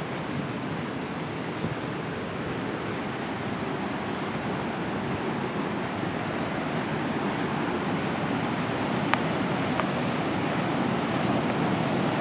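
Steady rush of Aira Force's falling water, growing slightly louder toward the end.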